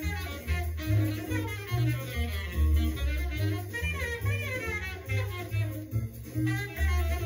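Jazz played from a mono vinyl record: saxophone lines over a walking double bass.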